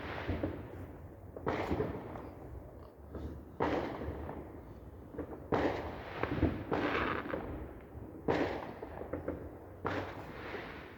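Fireworks going off: a run of about seven sudden bangs, roughly every one to two seconds, each dying away over a second or so.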